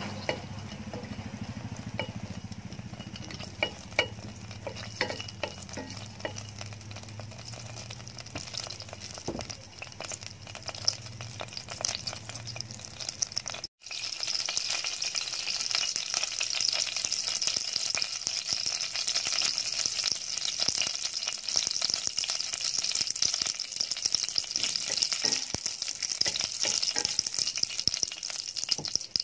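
Whole spices (cinnamon sticks, cloves, star anise, cardamom and black peppercorns) frying in hot oil in a stainless steel pot, with scattered crackles and a spatula stirring against the metal. After a cut about halfway through, the oil sizzles with a steadier, louder hiss.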